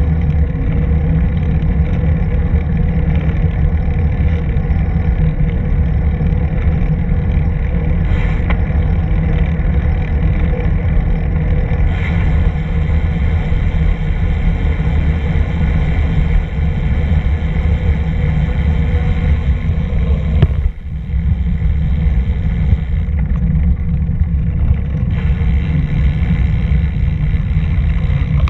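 Steady low rumble of wind buffeting the microphone and tyre noise while riding along a paved bike path, with a brief dip about 21 seconds in.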